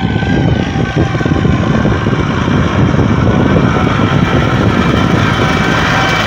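Valmet 65 tractor's diesel engine running steadily under load while pulling a three-disc plough through the soil, getting a little louder as the tractor comes up close.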